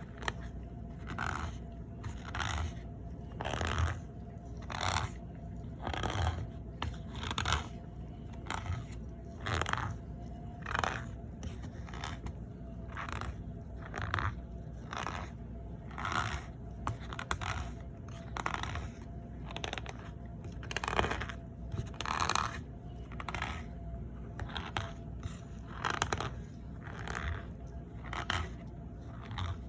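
Packed cornstarch powder squeaking and crunching under pressure, in short strokes about once a second.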